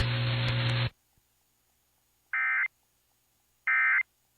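Emergency Alert System end-of-message data bursts: two short, identical buzzy digital tone bursts a little over a second apart, after broadcast hiss and hum that cuts off about a second in.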